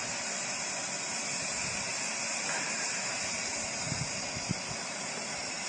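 Kunkle safety valve on a live-steam 4-4-2 locomotive's boiler lifted and blowing off steam in a steady hiss, the boiler at its popping pressure.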